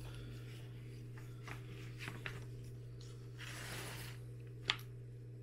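Paper rustling as a glossy magazine's pages are turned and spread open, with a few light clicks and one sharper click near the end.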